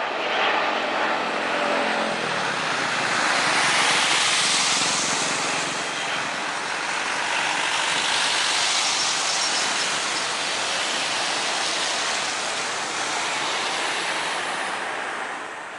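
Boeing 777-300ER's twin GE90 jet engines during a landing: a steady rushing jet noise that swells about four seconds in as the aircraft passes, swells again around touchdown about eight seconds in, then eases off during the rollout.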